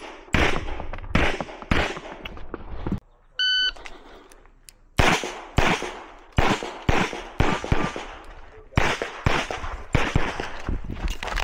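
A string of rapid pistol shots fired during a practical pistol stage, about two a second, with a break of about two seconds roughly a third of the way in. A short electronic beep sounds during the break.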